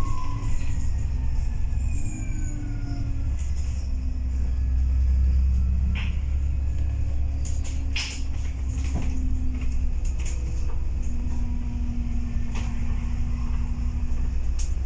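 Dennis Trident 2 / ADL Enviro 400 double-decker bus heard from inside while driving: a steady low engine drone with a faint whine that falls in pitch near the start, and a few short rattles or knocks scattered through.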